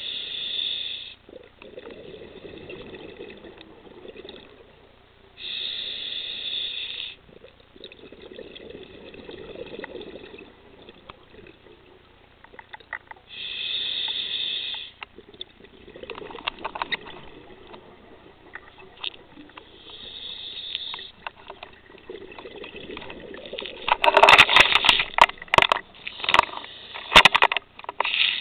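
Scuba diver breathing underwater through a regulator: a short hiss on each inhale, about every seven seconds, each followed by a low burbling of exhaled bubbles. Near the end a loud burst of bubbles crackles and pops close to the microphone.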